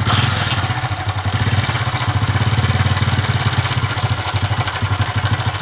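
Single-cylinder 70cc four-stroke motorcycle engine of the Honda CD70 type idling with a rapid, even beat, carrying the engine noise that the mechanic traces to a worn timing chain.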